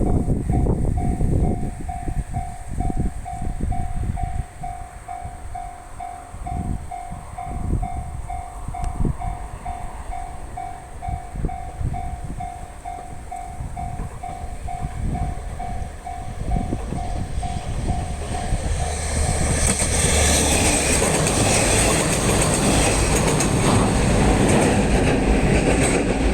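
Japanese level-crossing warning alarm ringing about twice a second, over irregular low rumbling. About twenty seconds in, a local train rolls over the crossing, and its running and wheel noise rises loud and steady over the alarm.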